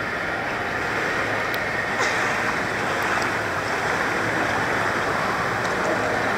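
Swimming pool water sloshing and lapping around a waterproof camera held at the surface, a steady rushing wash of water noise as a child swims close by.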